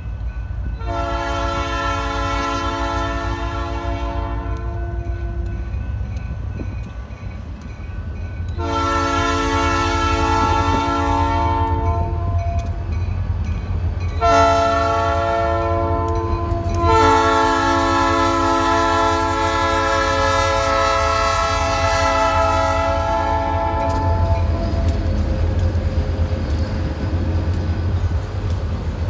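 Kansas & Oklahoma Railroad diesel locomotive's air horn sounding the grade-crossing signal as the train approaches: two long blasts, a short one, then a final long one. A steady low rumble runs underneath.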